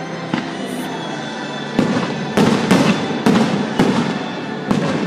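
Aerial firework shells bursting: a string of sharp bangs, about seven in five seconds, coming faster and louder in the second half.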